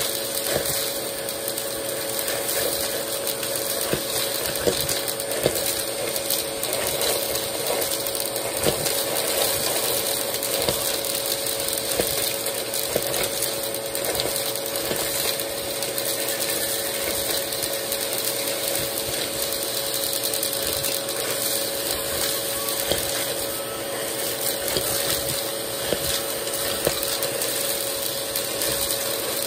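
Vacmaster vacuum running with a steady whine while small coins, sequins and beads are sucked up through its clear plastic wand, clattering and rattling against the tube in a constant stream.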